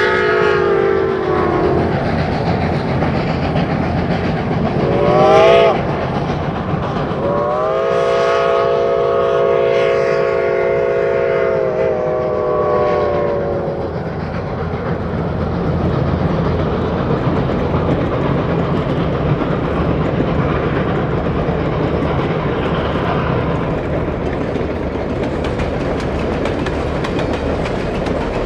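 Reading & Northern 425's steam whistle blows: a blast dies away in the first two seconds, a short blast comes about five seconds in, then a long blast of about six seconds, each sounding several notes at once and sagging in pitch as it closes. After it the train runs on with a steady rumble, and wheels clicking over the rails grow louder near the end.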